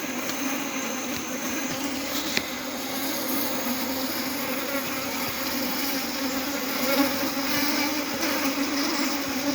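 A swarm of honey bees buzzing steadily in flight, a dense even hum. The swarm is returning to the hive because the queen is still inside.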